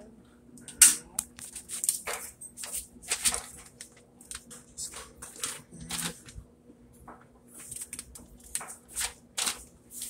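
Pages of a paper manual being flipped and rustled by hand in quick, irregular flicks, over a faint steady hum.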